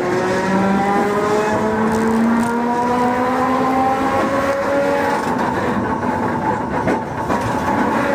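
Electric streetcar accelerating: a motor whine of several tones rising slowly in pitch over the rumble of running, with a few faint knocks near the end.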